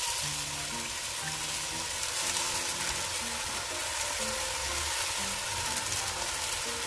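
Shredded napa cabbage sizzling steadily in hot oil in a pot, a continuous frying hiss.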